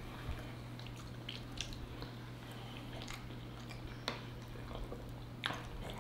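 Close-miked eating sounds: soft chewing and squishy mouth noises, with a few sharp clicks of metal forks against glass and ceramic bowls, over a steady low hum.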